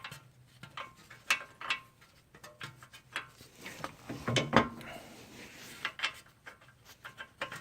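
Irregular metallic clicks and clinks of a nut being put back onto the lower control arm's bolt and screwed in, with a louder knock about four and a half seconds in.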